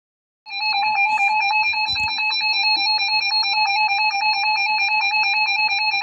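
Emergency alert attention tone: a loud, steady, buzzy electronic tone with a fast regular pulse, starting about half a second in, sounding ahead of a severe thunderstorm warning.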